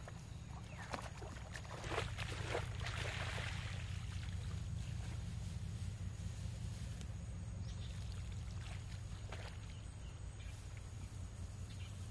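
Paddy water splashing and sloshing as rice seedlings are pulled up from the flooded seedbed, loudest about two to three seconds in, with a few shorter splashes later over a steady low rumble.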